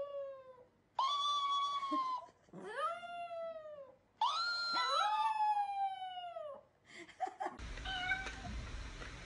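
Chihuahua howling: four long howls, each about one to two seconds, that rise and then slide down in pitch, with two voices overlapping in the last one. About seven and a half seconds in, the howling gives way to steady background noise.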